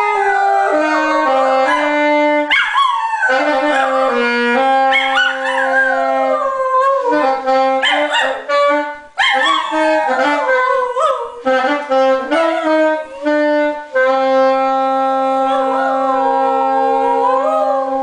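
A dog howling along with a wind instrument. The instrument holds long steady notes that step between a few low pitches, with short breaks between phrases, while the dog's howls waver and slide in pitch above it.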